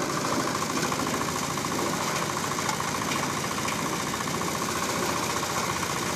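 Small single-cylinder diesel engine running steadily with an even knocking beat, driving a drum grass chopper whose blades are shredding grass as it is fed through.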